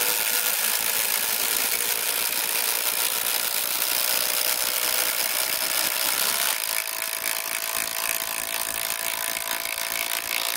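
Two cordless impact drivers, a Kobalt XTR 24V brushless and a Makita 18V, hammering together under load as they drive 10-inch timber lok screws into 6x6 timber: a dense, rapid rattle of impacts. About six and a half seconds in the sound changes and drops a little in level.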